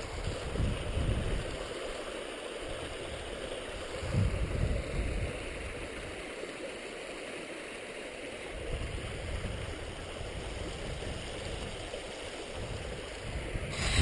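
Small shallow creek running over rocks, a steady rushing hiss, with wind rumbling on the microphone now and then.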